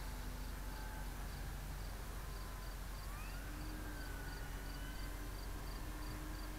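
Faint whine of a distant electric RC warbird's motor and propeller (FMS 1700mm P-47) as it flies past, its pitch sliding up and then down. Under it are a steady hiss and a high chirp repeating about three times a second.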